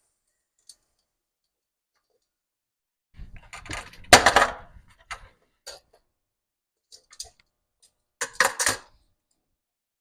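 Metal kitchen utensils and cookware clinking and clattering: a run of knocks about three to six seconds in, loudest just after four seconds, a few light clicks, and another short clatter near the end.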